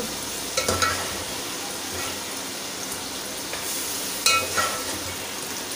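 Beef frying in a pot of onion, tomato and spice masala, sizzling steadily while a metal spoon stirs it. The spoon knocks on the metal pot twice, about half a second in and about four seconds in, each knock ringing briefly.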